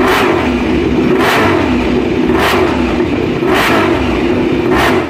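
Racing motorcycle engine sound, revving in repeated swells about once a second over a steady running note, then cutting off abruptly at the end.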